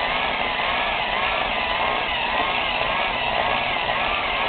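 Electric low-RPM buffer running against an aluminum motorcycle shock tube, polishing out the sanding marks. Its motor whine wavers up and down in pitch as it is worked along the tube.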